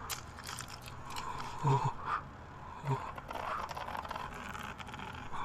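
Soft rustling and scraping of clothing with faint breathing, and two short low vocal sounds about a third and half way through.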